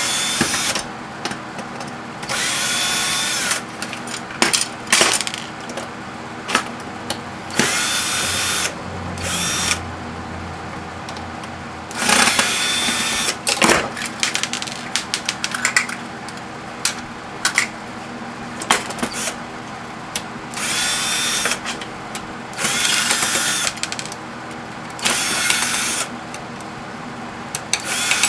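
Cordless power drill or driver whirring in short runs of about a second, about six times, as it backs screws out of a scrap microwave oven's casing. Sharp clicks and clinks of metal parts and screws come between the runs.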